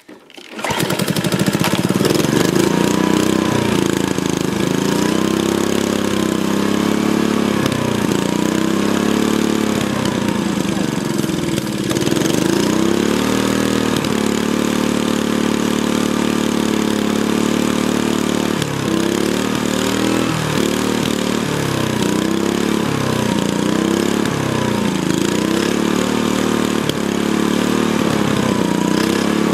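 Stiga SV150 lawn mower engine running, coming in suddenly about half a second in. Its speed rises and falls over and over, holding steady for a few seconds in the middle.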